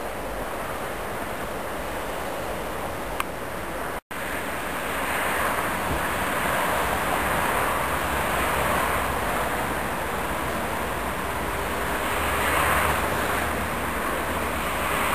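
Distant freight train approaching: a steady, noisy rumble that swells and eases a few times. A brief drop to silence about four seconds in.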